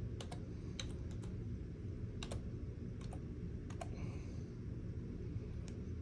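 Keypad keys pressed one at a time, about a dozen sharp, irregularly spaced clicks, as a calculation is keyed in. A steady low hum runs underneath.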